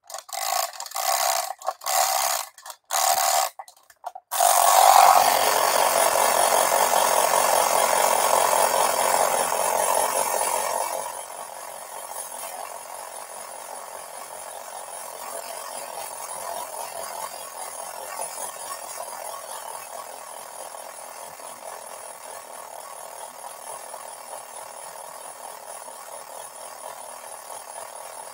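Clockwork tin toys: a key is wound in short ratcheting strokes for about four seconds, then the spring mechanism runs with a loud steady whir for about seven seconds. After that a quieter steady mechanical whir with fine ticking carries on while the toy airplane circles its globe.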